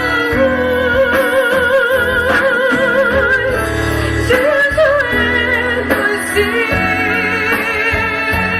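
Female soloist singing a gospel song with an orchestra, holding long notes with a wide vibrato, each about three seconds, over sustained orchestral chords and a bass line.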